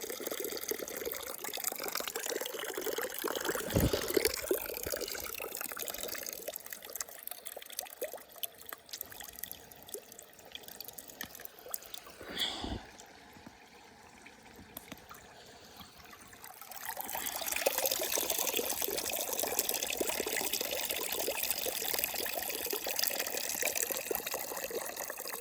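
Water being poured into a handmade birch-bark basket, trickling and dribbling, with a couple of soft knocks. It goes quiet for a few seconds past the middle, then the trickling comes back louder. The basket does not hold water well and needs adjusting.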